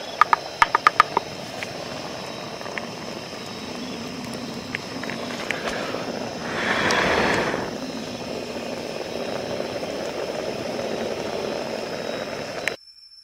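Wood fire crackling with a quick run of sharp pops at the start, over a steady rushing background. About seven seconds in a louder rush swells and fades, and the sound cuts off suddenly shortly before the end.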